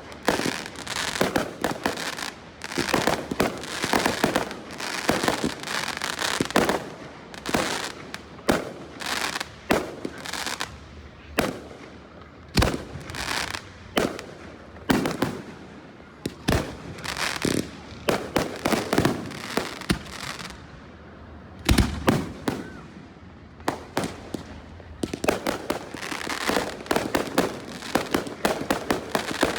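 Fireworks display: aerial shells bursting in quick succession with crackling between the bangs, busiest at the start and again near the end, with a short lull about two-thirds of the way through.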